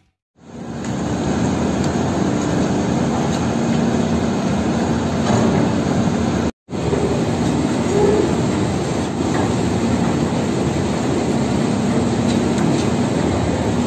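Heavy diesel construction machinery running steadily with a low engine hum. The sound drops out for a moment about six and a half seconds in, then carries on the same.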